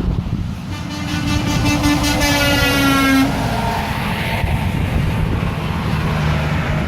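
Semi truck's air horn blown in one single-note blast of about two and a half seconds, its pitch sagging slightly near the end, over the engine and tyre noise of the passing trucks.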